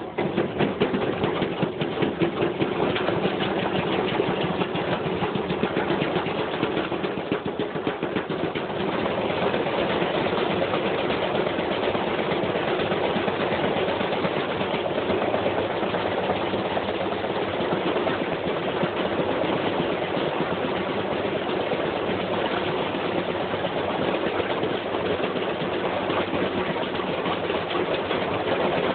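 Washing machine running with a heavy piece of metal tumbling inside its drum, a loud continuous clatter of metal banging against the drum. It starts suddenly and settles into a steadier rattle after about eight seconds.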